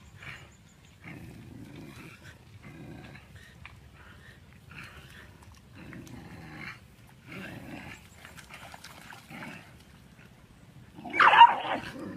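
Two dogs growling at each other in repeated bouts about a second long, then a sudden loud outburst near the end.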